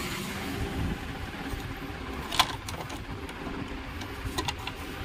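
Plastic clicks and knocks from handling the air cooler's plastic body and switch-box panel: one sharp click about halfway through and a few lighter ones near the end, over a steady low background rumble.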